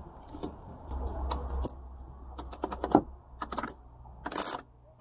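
Light metal clicks and knocks from a dismantled sailboat winch as its drum is handled and fitted onto its base. A quick run of clicks, the loudest, comes around the middle, and a short rustle near the end.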